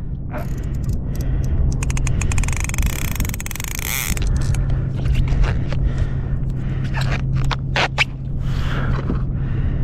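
Conventional fishing reel cranked fast to bring in a hooked fish: a dense run of rapid clicks and rattling from about two to four seconds in, then scattered clicks and knocks as the rod and tackle are handled.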